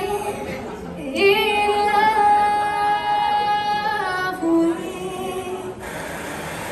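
A recorded song with a female voice singing long, held notes.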